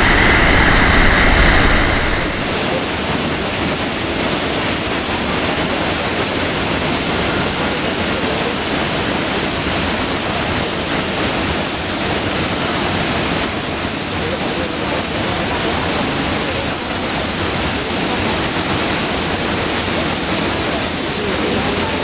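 Steady rushing roar of a large waterfall and the churning white water below it, a little louder for the first two seconds and then even.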